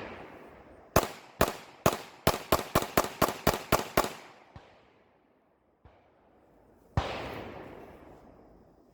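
9mm handgun firing 115-grain remanufactured ammunition: a quick string of about eleven shots, speeding up to about four a second, then after a pause of nearly three seconds one more shot.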